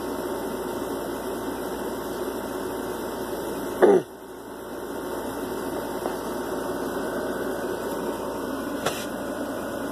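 Steady mechanical hum of a running appliance in a small room. About four seconds in, a brief loud sound drops in pitch, and a faint sharp click comes near the end.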